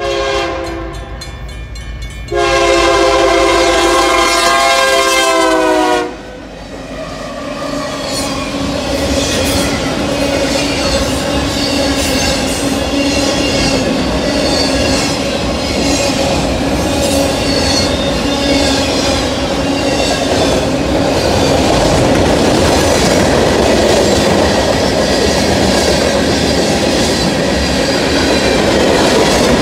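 Freight train at a grade crossing. The diesel locomotive's air horn sounds, with a longer, louder blast from about two to six seconds in that dips in pitch as the locomotive passes. The train's cars then roll through with a steady rumble and clickety-clack of wheels over the rail joints, while the WRRS crossing bells ring.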